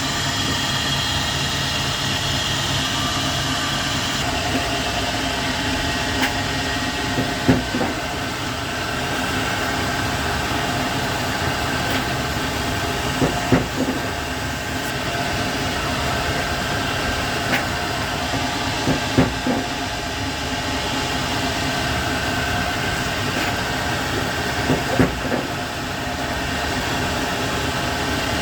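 Lathe running steadily, spinning a motorcycle armature for polishing, with a hum made of several steady tones. Brief louder scraping sounds come about every six seconds.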